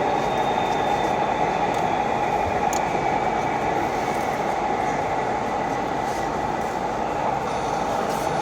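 Model trains running on an exhibition layout: a steady, even running noise of wheels and motors on the track, with a faint steady whine.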